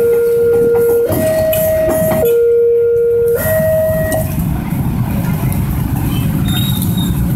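Level-crossing warning alarm alternating between a low and a high note, each held about a second, over the low rumble of a passing KA Prameks diesel train. The alarm stops about four seconds in, and the train rumble carries on.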